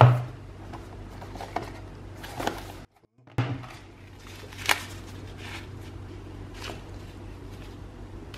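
A small product box being opened and its packaging handled by hand: scattered light clicks, taps and rustles over a low steady hum. There is a short gap of silence about three seconds in, and a sharper click a little later.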